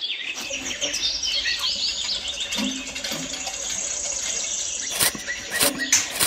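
Small birds chirping in quick series. A few sharp clicks come near the end.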